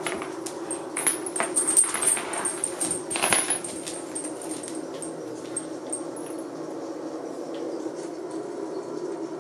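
Metal chain dog collars jingling and clinking, with scuffling and knocks, as a shiba inu and a bull mastiff tug at a rope toy on a wooden floor. The jingling and knocks are busiest over the first few seconds, then settle to occasional faint ticks.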